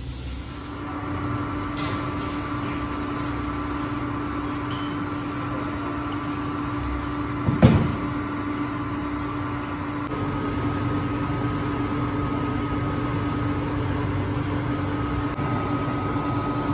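Induction cooktop running under a frying pan: a steady electrical hum with a fan and a thin whine, a second higher whine joining a little past halfway. A single sharp knock just before halfway, likely the ladle or pan being handled as batter is poured.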